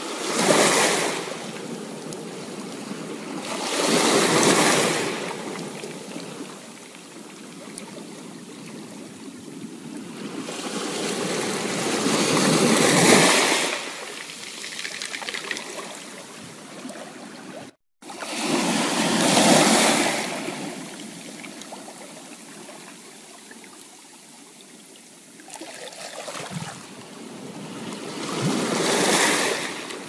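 Small ocean waves breaking and washing up a sandy beach: a steady hiss of surf that swells and fades about five times, at uneven gaps of a few seconds. The sound drops out completely for an instant a little past the middle.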